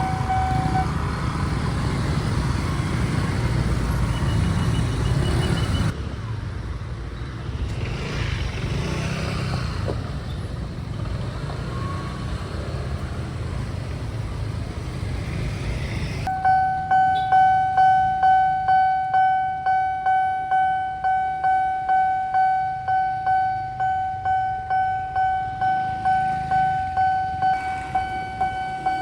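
Railway level-crossing warning alarm: it cuts off about a second in, and about sixteen seconds in starts ringing again as a steady electronic bell tone struck in even, decaying strokes about one and a half times a second, signalling an approaching train and the barrier lowering. Before it starts, a low rumble of passing vehicles fades to quieter road noise about six seconds in.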